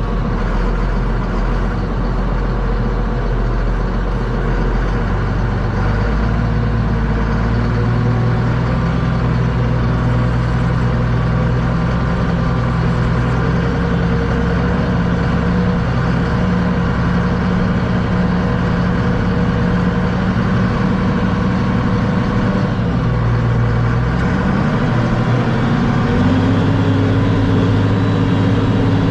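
Tractor engine running steadily, its speed shifting a few times and rising near the end.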